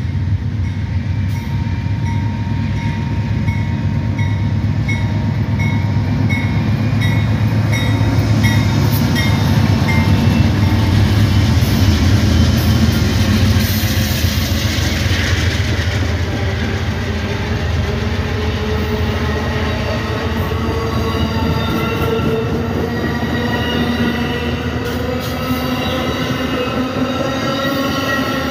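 Amtrak passenger train passing a road crossing: the GE Genesis diesel locomotive's engine and wheels rumble, loudest as it goes by, over a crossing bell ringing evenly in the first part. Then the Superliner cars roll past, their wheels squealing in rising tones.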